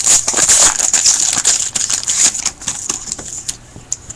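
Trading card pack wrapper being torn open and crinkled by hand, a dense run of fast crackling clicks that thins out near the end.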